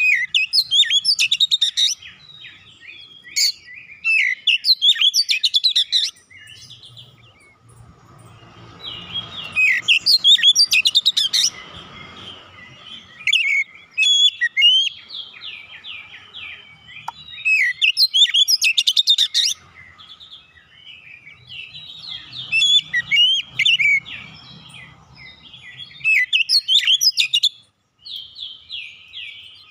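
Oriental magpie-robin singing: loud phrases of quick, varied whistled notes sweeping up and down, each phrase a second or three long with short pauses between, repeated many times.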